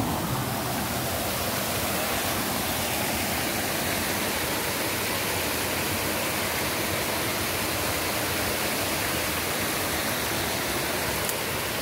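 Muddy floodwater rushing steadily over a concrete culvert ledge and down a rocky creek bed: the dam overflowing after heavy rain.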